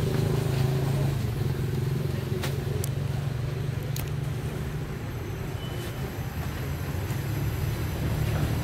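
An engine running steadily nearby, a continuous low hum, with a few faint ticks over it.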